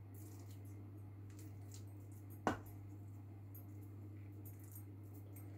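Quiet handling of food: a wooden spatula pressing soft mashed-potato stuffing into a bell pepper half, with faint small clicks and one sharp knock about two and a half seconds in, over a steady low hum.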